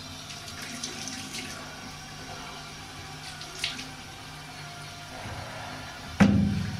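Bathroom sink tap running, with hands washing under the stream. A sudden loud thump about six seconds in.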